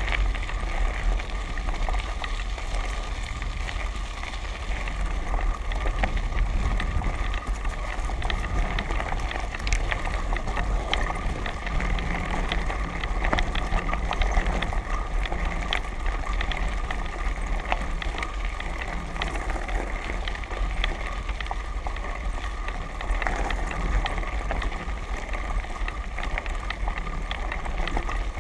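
A moving vehicle's tyres roll over a dirt and gravel track: a steady low rumble and gravel crunch, scattered small clicks and rattles, and a steady whine.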